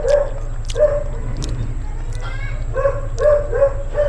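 A dog yipping repeatedly: short, high yelps, often in quick twos and threes, with a pause about halfway through.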